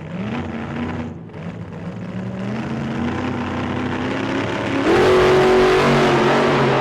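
Car engine accelerating, its pitch climbing in steps as it shifts up, then pulling louder and higher about five seconds in, heard from inside the moving car.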